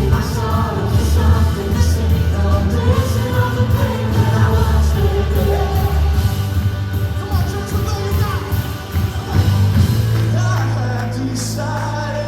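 Live church worship band playing a rock-style song with singing, drums and bass. A couple of seconds before the end the drums drop out, leaving a held low chord.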